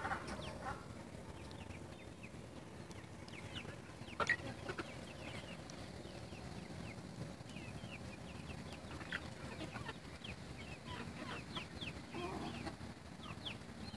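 Flock of young chickens, about 14 to 15 weeks old, clucking and giving many short high calls, with one louder, sharp sound about four seconds in.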